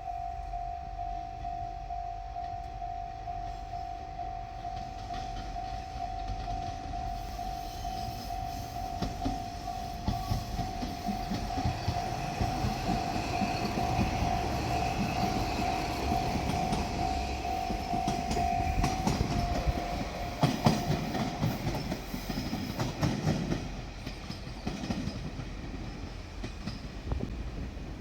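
A Japanese level-crossing warning bell rings with a steady pulsing tone while a diesel train passes, its wheels clacking over the rail joints loudest about twenty seconds in. The bell stops about 21 seconds in, and the train noise dies down a few seconds later.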